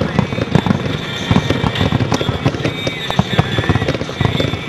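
Aerial fireworks going off in a rapid, continuous barrage of bangs and crackles, several reports a second with no pause.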